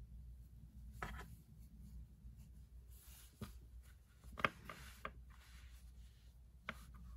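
Faint rubbing and rustling of hands handling a crocheted yarn swatch on its metal hook against a wooden table, with a few short scrapes and taps, the sharpest about four and a half seconds in, over a low steady hum.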